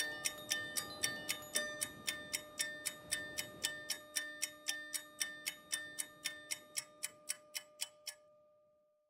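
A Samsung Galaxy J3 (2017) ringtone: fast, even ticks about four a second over held chime tones, fading out and stopping about eight seconds in, with one tone ringing on briefly after.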